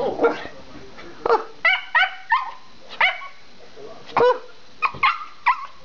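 Schipperke barking excitedly: about ten short, sharp, high-pitched barks in quick, irregular succession.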